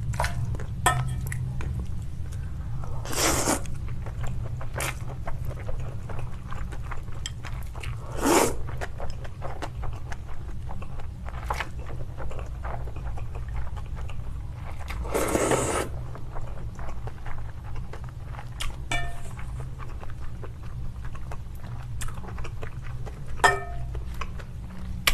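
Close-miked eating of spicy noodles: three loud slurps of noodles about 3, 8 and 15 seconds in, the last one longest, with chewing and short clicks in between. A steady low hum runs underneath.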